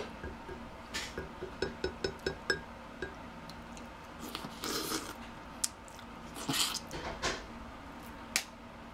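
Close-miked eating of king crab leg meat: wet squishes and mouth smacks. A quick run of clicks comes about a second in, longer wet bites follow around the middle, and a single sharp click comes near the end.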